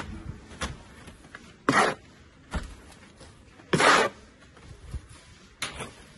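Plastering trowel working wet mortar onto a wall: about six short scraping strokes, the longest and loudest about two and four seconds in.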